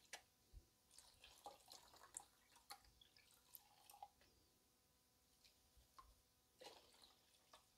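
Faint, irregular drips and small splashes of water from a plastic gold pan of paydirt as it is tilted and dipped in a tub of soapy water.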